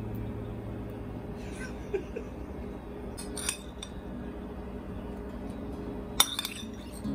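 Kitchen utensils clinking and knocking against a ceramic plate and a granite mortar as cooked rice is scraped off the plate into the mortar: a few light clicks, then one sharper clink about six seconds in.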